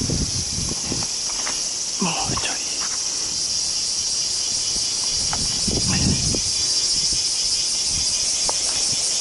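A steady, high, buzzing chorus of summer insects, with a few short rustles and knocks about two and six seconds in.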